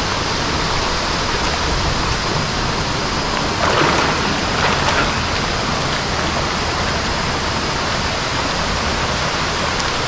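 Waterfall plunging into its basin: a loud, steady rush of falling water, with a couple of brief louder swells about four and five seconds in.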